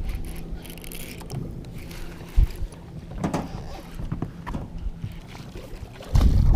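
Boat motor humming steadily, with scattered small clicks and a sharp knock about two and a half seconds in; near the end a loud low rumble sets in suddenly.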